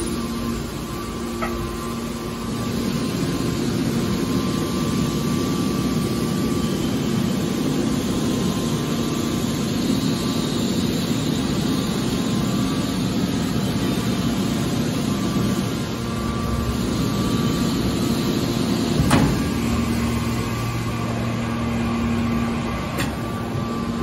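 Hydraulic scrap metal baler's power unit running steadily: a constant hum with a higher whine over it. A sharp knock about 19 seconds in, after which a deeper hum joins.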